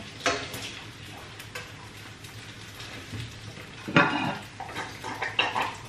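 Dumplings frying in oil in a wok, a steady sizzle, with a wooden spatula scraping and clicking against the pan as they are lifted out. A louder clatter of dishes about four seconds in.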